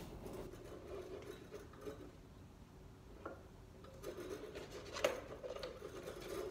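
A pointed metal tool scratching and scraping on gasket paper at a workbench as a circle is scribed, in uneven rubbing strokes, with a sharp tap about five seconds in.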